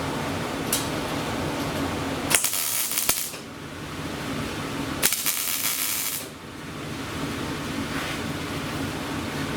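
Two loud bursts of hissing, each about a second long and a few seconds apart, with a few sharp clicks, over a steady machine hum.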